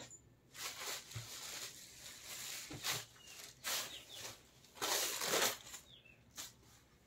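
Rustling of a georgette saree as it is handled, in several soft swishes lasting a fraction of a second to about a second each.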